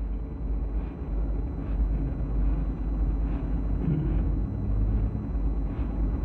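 Steady low rumble and hiss from an old recording, with faint room noise, during a pause between recited verses.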